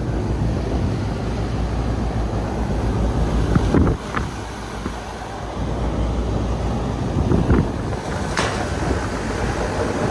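Carrier A/C unit running in cooling, compressor and condenser fan on, a steady low hum. The compressor has just been started by a jumper on the Y1 cooling call.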